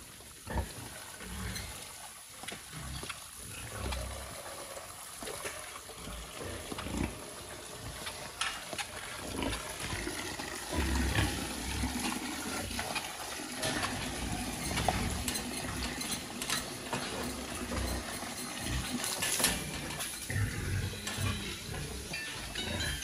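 Water from a hose spraying into a pig pen, with pigs grunting and moving about in the pens.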